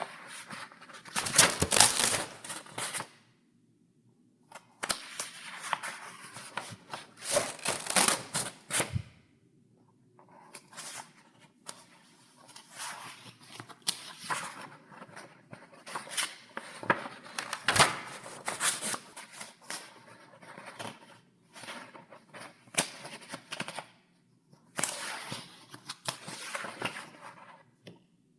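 Paper pages in a file being turned one after another: crisp rustling sweeps with sharp paper snaps, in clusters with short pauses between them.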